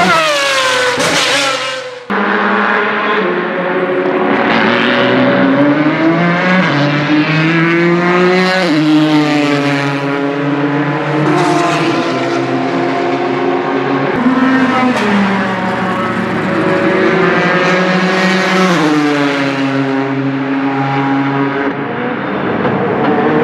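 Ford GT GTE race car's 3.5-litre twin-turbo V6 at speed on track, its pitch climbing and dropping sharply several times through gear changes as the car passes. A short falling whoosh from the logo intro comes first, cut off by an edit about two seconds in.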